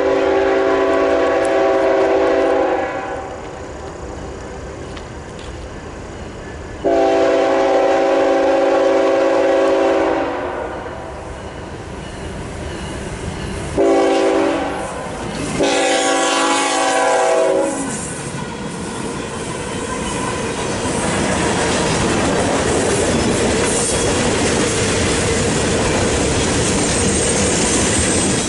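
Freight train's lead diesel locomotive sounding its multi-tone air horn in the grade-crossing signal: long, long, short, long. After that the locomotives and freight cars run past over the crossing, with the wheel noise on the rails building up and staying steady to the end.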